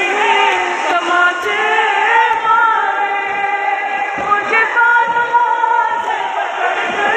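Group of men chanting a noha, a Shia mourning lament, in unison: long drawn-out sung notes that bend slowly in pitch, with several voices blending.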